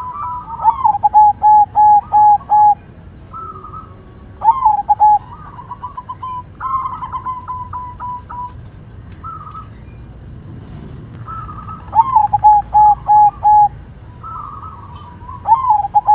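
Zebra dove (perkutut) cooing: five phrases, each opening with a gliding note and ending in a quick run of four or five short staccato coos, with fainter single coos between the phrases.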